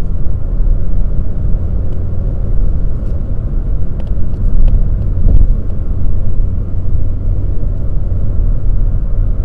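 Steady low in-cabin drone of a 2020 Mazda 3 Skyactiv-X cruising at about 130 km/h, its four-cylinder engine turning about 2,500 rpm in sixth gear.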